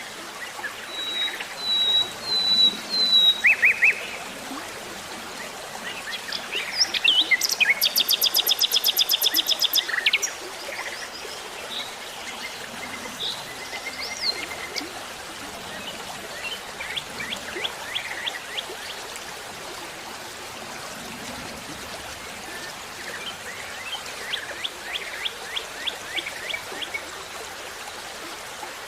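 Wild birds singing and calling: high whistled notes near the start, then a loud, fast run of repeated notes, about seven a second, lasting some three seconds. Softer trills follow later, over a steady background hiss.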